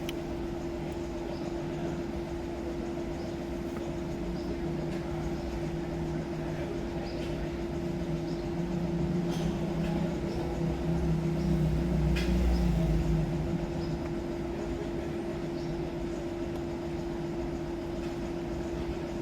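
Toyota Prius running in the workshop: a steady hum with a low rumble that grows louder about eight seconds in and eases back about five seconds later.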